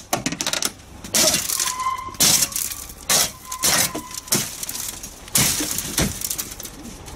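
A car's side window being smashed by repeated blows from an arm-mounted tactical shield: a series of sharp impacts as the glass cracks and shatters, with broken glass crunching between blows.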